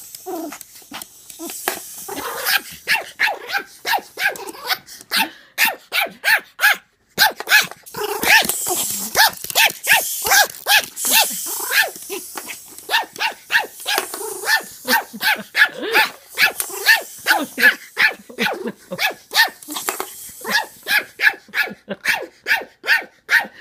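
Pomeranian barking over and over in short, sharp barks, about two to three a second, with some growling mixed in; the barking breaks off for a moment about seven seconds in, then carries on.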